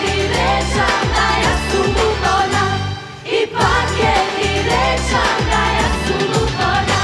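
Pop song sung by a female vocal group in unison over a backing track with a steady beat and bass; the backing drops out briefly a little after three seconds in.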